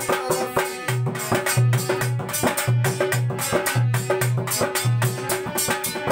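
Instrumental break in a Rasiya folk song: a dholak drummed in a quick rhythm, with deep bass-head strokes falling in pairs, over a harmonium holding a note, with chimta jingles.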